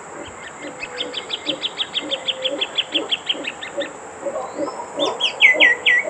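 Plain thornbird singing: a long, even series of sharp chattering notes, about six a second, that stops after three and a half seconds, then a few louder down-slurred notes near the end. A lower, softer repeated call runs beneath.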